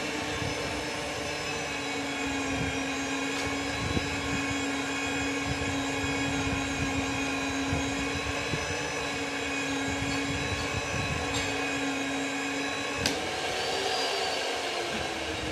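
Rothenberger electric pipe threading machine running steadily, its motor giving a constant hum and whine as it turns the pipe for threading. About 13 seconds in there is a click, and the pitch briefly rises and falls back.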